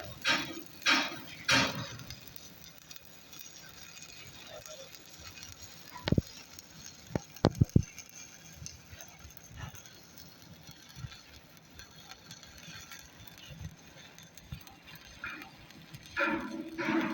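Hammer striking welded metal to test the weld: one ringing knock about six seconds in, then three quick sharp metallic strikes with a ringing tone about a second later. There are loud bursts of sound in the first two seconds and again near the end.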